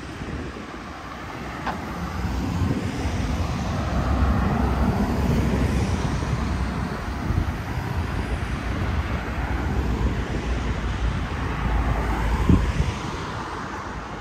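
Road traffic on a city boulevard: cars driving past close by, the noise swelling about two seconds in and easing off near the end.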